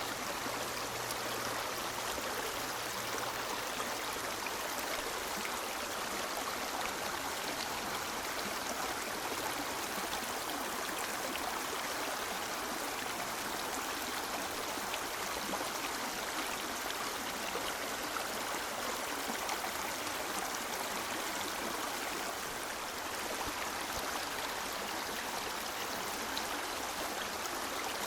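A river flowing steadily: an even, continuous rush of water with small splashes and trickles running through it.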